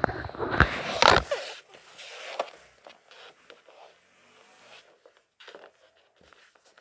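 Handling noise close to the microphone: loud rubbing and scraping with a few sharp knocks in the first second or so, then faint scattered clicks and rustles.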